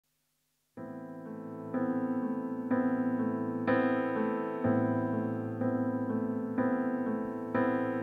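Electric piano playing the introduction to a song, sustained chords with a new one struck about once a second, starting after a moment of silence.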